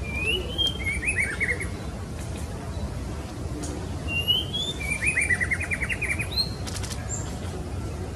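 Female white-rumped shama (murai batu) calling, used as a lure to draw a male: two phrases, each a rising note followed by a fast chattering run of short notes, the second longer. A steady low background noise runs underneath.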